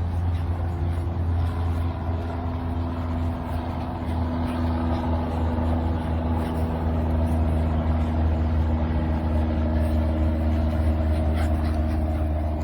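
An engine running steadily at an even speed: a low hum with a few steady tones above it.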